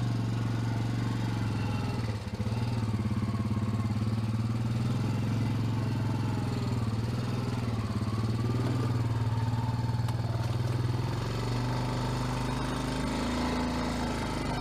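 Small vehicle engine running at a steady speed, with a brief dip about two seconds in and a slight drop in pitch and level near the end.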